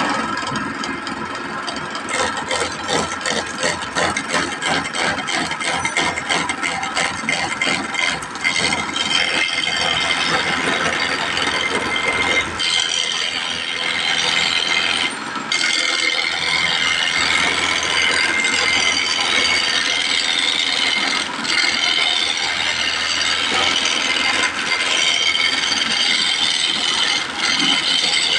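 Wood lathe spinning a square wooden blank as a hand-held turning tool roughs it round. For about the first nine seconds there is a fast rattling chatter, then it settles into a steady scraping cut.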